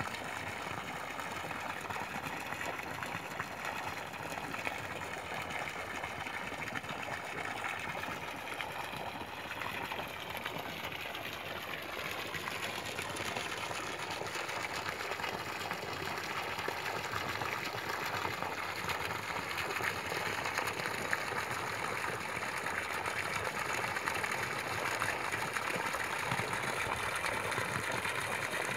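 A thin stream of water falling into a pond, splashing steadily at the surface.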